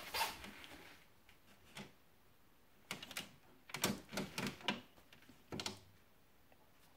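Scattered light clicks and knocks: one right at the start, one about two seconds in, a run of several between about three and five seconds in, and one more a little later.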